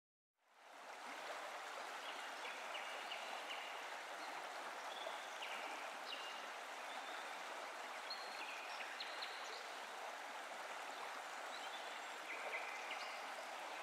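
Steady rushing outdoor ambience, fading in at the start, with short high chirps scattered through it.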